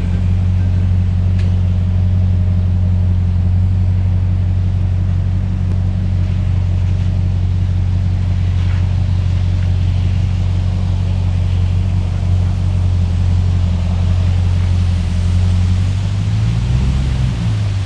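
Ram TRX's supercharged 6.2-litre V8 running with a steady deep drone, the engine note shifting briefly near the end.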